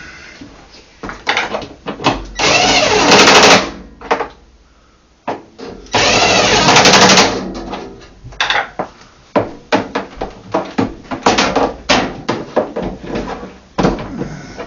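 Cordless power driver running bolts that join the washer's two tub halves, in two bursts of about a second and a half each, with clicks and knocks of parts being handled between them.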